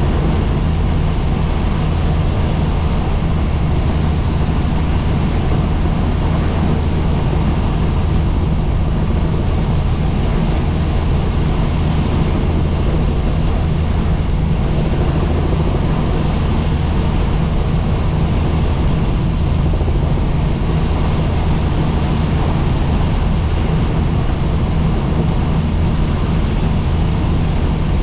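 Helicopter in steady cruising flight: a constant low drone from the rotor and engine that holds level, with no change in pitch or loudness.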